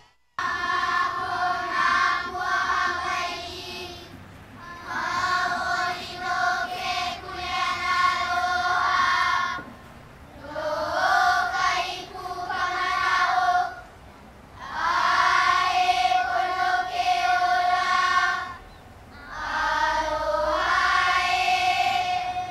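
A group chanting a Hawaiian oli in unison: five long phrases, each gliding up into a long held note, with short pauses between them.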